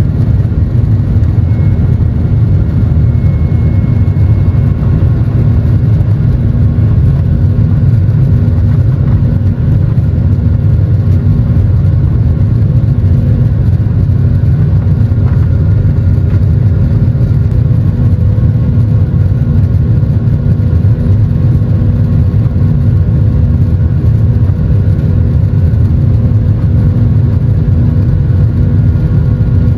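Jet airliner's turbofan engines, a Boeing 737-800's, running at takeoff power, a loud steady rush with a faint hum over it, as heard inside the passenger cabin during the takeoff run and initial climb.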